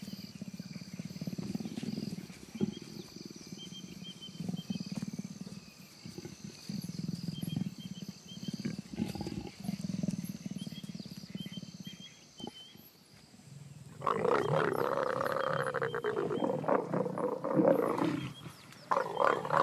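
A pair of leopards growling during courtship and mating. Short low growls come in repeated bouts. About fourteen seconds in, a loud snarling outburst lasts several seconds.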